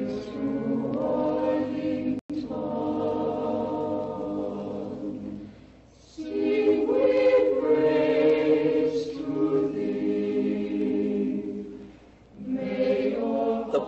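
Choir singing held chords in long phrases, with short breaths between phrases about six and twelve seconds in.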